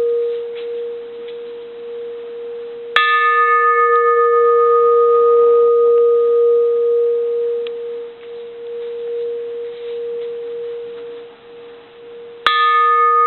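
Antique bronze Japanese Buddhist handle bell struck with a wooden striker on the chamfer: two clean single strikes, about three seconds in and again near the end. Each strike rings out in a long, steady tone, and its higher overtones die away first. The ring wavers slightly as it fades, and the ring from an earlier strike is still sounding at the start.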